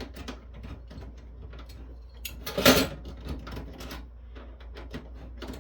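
Hands handling the parts of a disassembled network switch: a run of small clicks and light rattles, with one louder clatter about two and a half seconds in.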